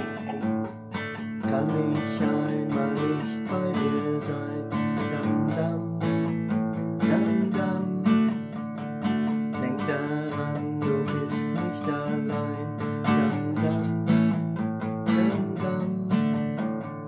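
Solo acoustic guitar, nylon-strung classical type, playing an instrumental passage with a steady run of plucked and strummed chords and single notes, and no singing.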